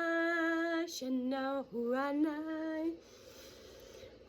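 A woman singing wordless light-language tones in long held notes, with a dip and glide in pitch between them. The singing stops about three seconds in.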